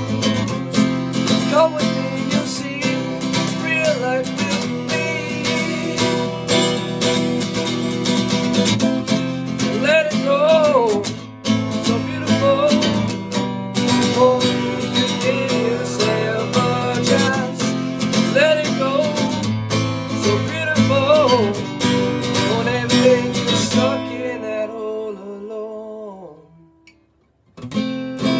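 Steel-string acoustic guitar strummed steadily through an instrumental break. About twenty-four seconds in, the strumming stops and the chord rings out to near silence, then the strumming starts again right at the end.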